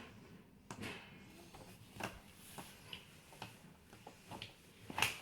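Plastic toy gate and fence pieces of a Fisher-Price Little People farm playset clicking and knocking as they are handled and pushed into place: a scattered series of light taps, the loudest near the end.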